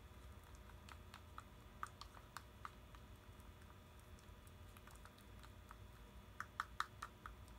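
Faint, scattered clicks of a spatula stirring runny slime in a small plastic jar, with a quicker run of taps near the end.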